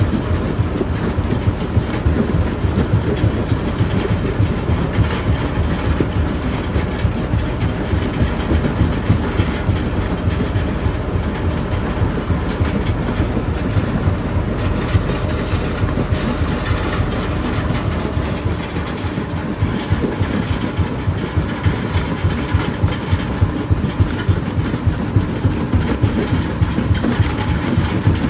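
Jaw crusher running with rocks clattering and cracking between its jaw plates: a loud, continuous clatter of rapid knocks over a low rumble.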